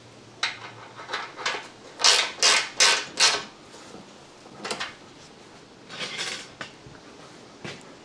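Metal hand tools clinking and scraping as wrenches are handled on the shock-absorber bolts, in irregular strokes, the loudest a run of four about two to three and a half seconds in.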